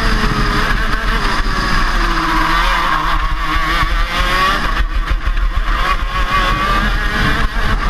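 Single-cylinder two-stroke 125cc KZ shifter kart engine running at racing speed, its pitch dipping about two seconds in and climbing again as it accelerates out of the bend, with wind rumble on the onboard microphone.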